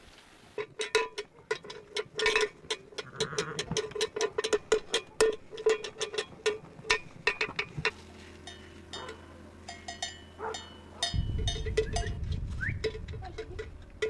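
Bells on a flock of sheep clinking and clanking irregularly as the animals move. A low rumble comes in about eleven seconds in.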